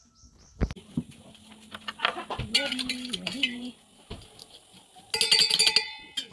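Chickens calling, with a louder call about five seconds in, over light clinks and knocks of dishes.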